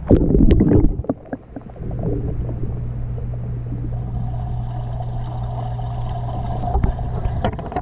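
Water sloshing and splashing around a camera as it is plunged into a swimming pool for about the first second, then a steady low hum heard underwater.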